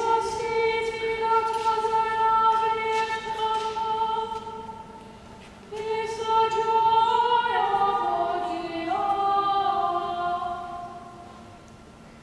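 Unaccompanied voices singing long held notes in two phrases, the second stepping down in pitch and fading out, sounding in the large stone space of a cathedral.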